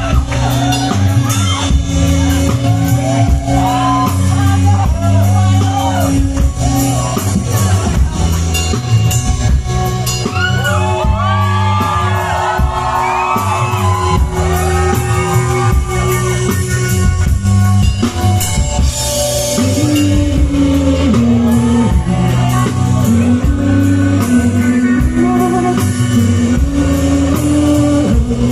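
Live rock band playing a song: guitars, bass and drums, with singing over them.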